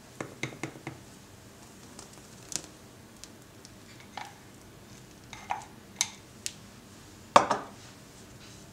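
Scattered clinks and taps of kitchen utensils and a small container against a glass mixing bowl, a quick run of four near the start and one louder knock near the end.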